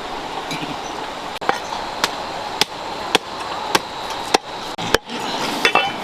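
A knife or cleaver chopping in a regular rhythm, about two strokes a second, over a steady rushing background noise.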